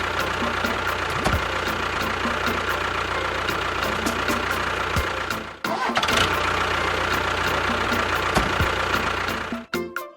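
Tractor engine running steadily. It cuts out about five and a half seconds in, starts up again and runs on, then stops near the end.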